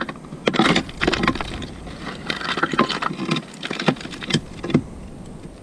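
A pick mattock chopping into hard, stony trail dirt: a series of sharp metal-on-stone strikes, about half a dozen, with gritty scraping of soil and rock between them.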